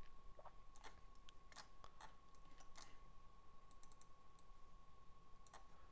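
Near silence with a few faint computer mouse clicks, mostly in the first three seconds and one more near the end, over a faint steady hum.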